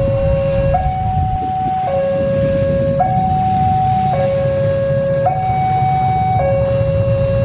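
Electronic two-tone warning alarm, typical of a railway level-crossing signal, alternating steadily between a low and a slightly higher tone about once a second, over a steady low rumble.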